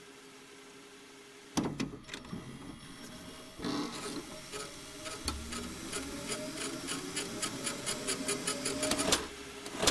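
VCR tape-transport sound effect: clunks of the deck's buttons, then a mechanical whir with steady rapid ticking and a tone slowly rising in pitch as the tape fast-forwards, cut off by another clunk near the end.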